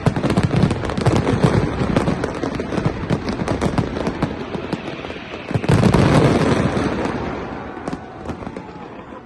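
A fireworks display: a dense, continuous barrage of bangs and crackling, with a heavy boom about six seconds in, then thinning out toward the end.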